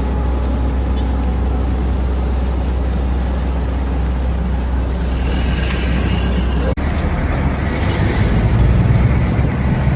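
Backhoe's diesel engine running steadily, with a sharp momentary dropout about two-thirds of the way through, after which the engine note gets heavier and a little louder.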